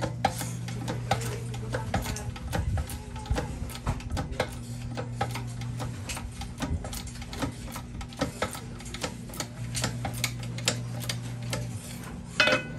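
Hydraulic bottle-jack press forcing a rifling button through a .22 airgun barrel blank: a run of irregular metallic clicks and ticks, with a low hum coming and going underneath. A louder clatter comes near the end.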